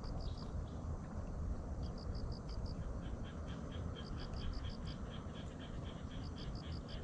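Insects chirping at the pond edge: short high pulse trains in groups of about five, repeating every couple of seconds, with a second, steadier chirping joining about three seconds in, over a low steady rumble.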